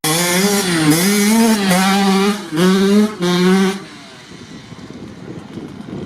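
Kawasaki KX65's small single-cylinder two-stroke engine revving high while being ridden, its pitch rising and falling with two brief throttle chops. It stops abruptly about four seconds in, leaving faint wind noise.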